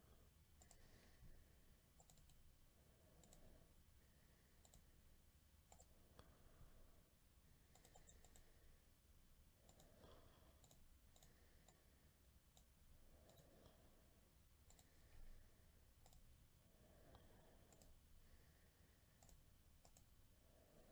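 Faint computer mouse clicks, scattered about once a second, over near-silent room tone.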